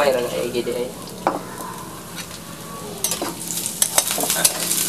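Food frying and sizzling in a pan over too big a fire while it is stirred, the utensil scraping and clicking against the pan, more busily in the second half.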